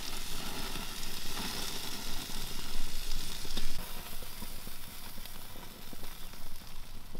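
Bacon-wrapped teal poppers sizzling on a gas grill's grate over open flame, a steady hiss with a few light clicks of metal tongs.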